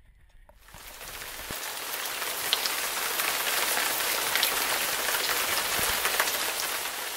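Steady heavy rain falling, with individual drops ticking through it. It fades in over the first second or two and eases off near the end.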